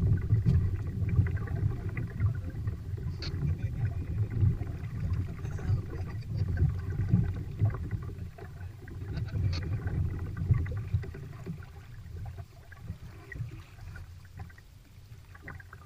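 Uneven low rumble of water and wind against a fishing kayak, with a few faint clicks; it dies down over the last few seconds.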